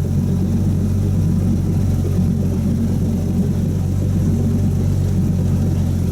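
Ferrari 458 Spider's V8 idling steadily, a low, even hum with no revving.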